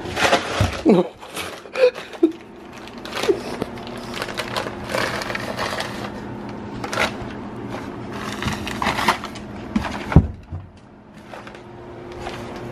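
Brown paper bag crinkling and rustling in repeated bursts as a cat wriggles inside it, with a sharp thump about ten seconds in.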